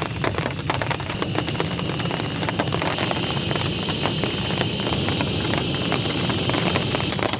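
A steady engine-like hum with several high whining tones over the rain, cutting off suddenly at the end.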